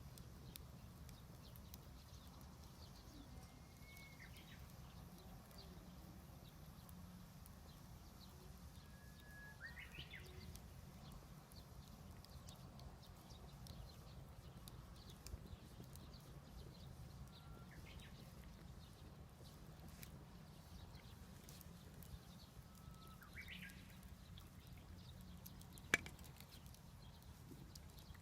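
Backyard wood bonfire crackling faintly, with scattered small pops and one sharp louder pop near the end. A bird calls four times in the background, each a short note sweeping upward.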